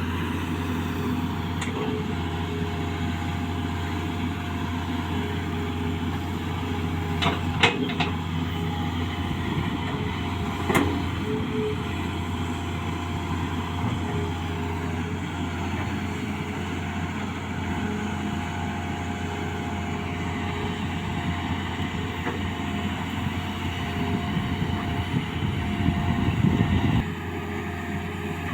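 Hitachi Zaxis 210F excavator's diesel engine running steadily under hydraulic digging work, with a few sharp metal clanks from the bucket and boom about seven to eight seconds in and again near eleven seconds. Toward the end the engine works harder and louder, then drops back suddenly.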